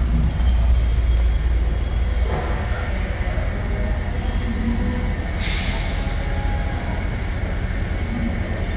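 International T444E 7.3-litre V8 diesel idling steadily, with a short hiss about five and a half seconds in.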